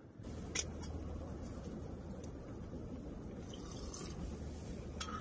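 Hot-pot broth simmering in a stainless steel bowl on a tent stove: a steady bubbling with a low hum underneath and a few light clicks.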